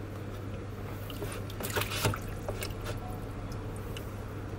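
Water sloshing and dripping as a hand scoops raw chicken skin, fat and lime pieces out of a plastic bowl of rinse water, with a few small splashes about two seconds in.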